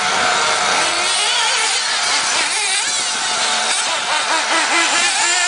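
Radio-controlled buggy's motor running at a high pitch that rises and falls repeatedly as the buggy speeds up and slows down.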